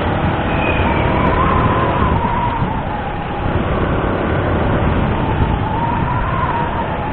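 Motorcycle riding at road speed: a steady rush of wind on the helmet camera's microphone over the running engine, with a faint engine whine that drifts slightly up and down.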